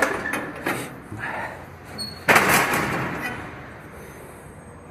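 A few short knocks, then a loud bang about two seconds in that dies away over about a second.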